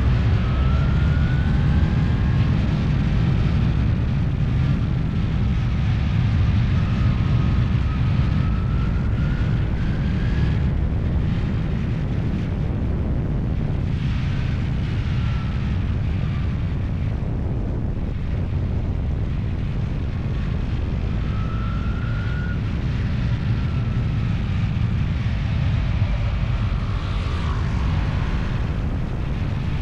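An engine running steadily under a dense low rumble, with a fainter whine that rises and falls in pitch several times.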